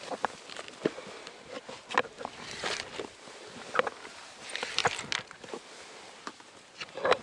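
Hiking boots stepping and scuffing on rock: irregular clicks, knocks and short scrapes, with a louder cluster of knocks near the end.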